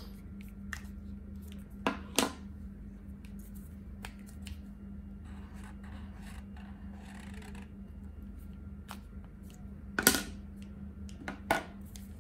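Plastic caps of Posca paint markers snapping on and off: two sharp clicks about two seconds in, a louder one about ten seconds in and two more near the end. In between, a marker's tip scratches softly on paper for a couple of seconds, over a steady low hum.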